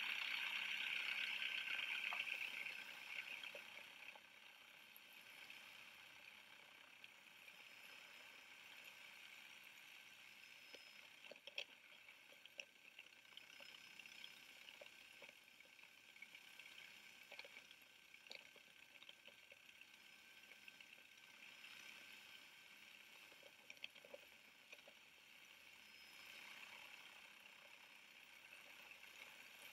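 Faint, steady rushing noise of the helicopter flight carried on the aerial footage's own soundtrack. It is louder for the first two to three seconds, then settles lower, with a few light clicks scattered through it.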